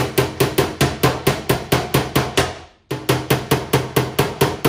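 Rapid, even hammer blows on the Audi S4's front wing at the wheel arch, about five a second, with a short pause partway through before the knocking resumes. The blows are knocking out a dent where the wing has been pushed in.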